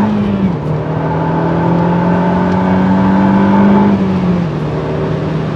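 Renault Mégane R26.R's 2.0-litre turbocharged four-cylinder engine pulling hard under acceleration. Its pitch climbs slowly, then drops abruptly twice, about half a second in and again near the end, as it shifts up a gear.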